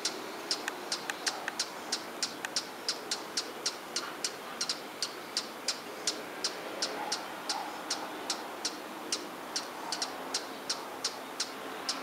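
A perched hummingbird repeating a short, sharp, high-pitched chip call at a steady rate of about three a second.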